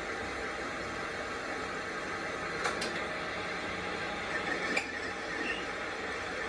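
Metal lathe running, its chuck spinning a steel shaft while a cutting tool turns the end: a steady machine noise. Two sharp clicks come a couple of seconds apart mid-way, and a brief high squeal from the cut follows the second.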